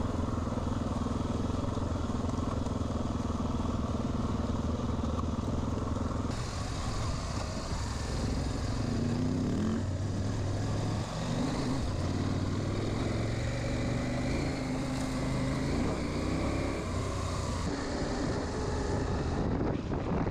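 Adventure motorcycle engines running while riding off-road, heard from handlebar-mounted cameras. The note is steady at first, changes about six seconds in as a different bike takes over, then rises and falls in pitch with the throttle. The later bike is a KTM 790 Adventure R with its parallel-twin engine.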